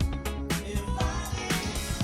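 Background music with a steady beat: funk-style track with drums and sustained instrument lines.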